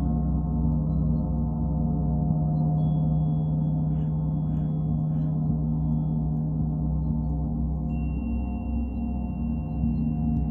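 A gong sounding in a sound-healing relaxation: a dense, sustained wash of low droning tones with many overtones, held steady throughout. A thin high ringing tone comes in about a third of the way through, and a slightly lower one takes over near the end.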